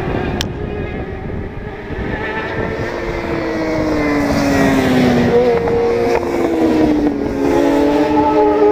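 Supersport and superbike racing motorcycles at high revs through a corner, several engines heard at once with their pitches sliding up and down as the riders shift and pass. It grows louder from about halfway in as the bikes come close.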